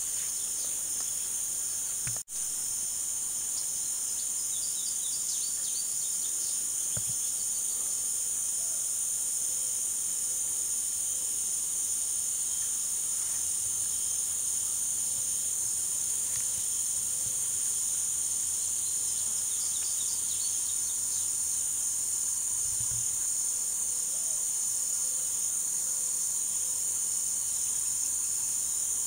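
Steady, high-pitched drone of an insect chorus with a few faint chirps; the sound drops out for an instant about two seconds in.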